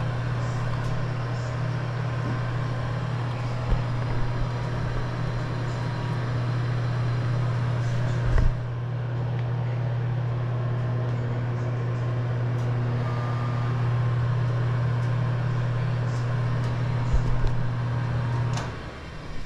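Steady low machine hum with a broad noise haze, cutting off suddenly near the end.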